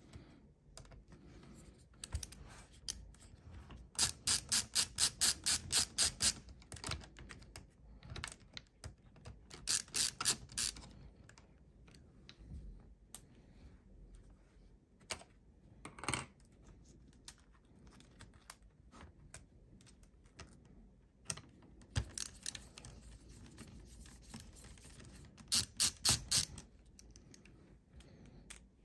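LTT ratcheting screwdriver's ratchet clicking as it turns small laptop screws (the M.2 card's retaining screw): several runs of rapid, evenly spaced clicks a second or two long, with fainter handling clicks between.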